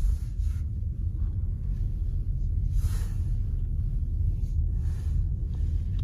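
Low, steady rumble of a car driving slowly, road and engine noise heard from inside the cabin, with faint swells of tyre hiss.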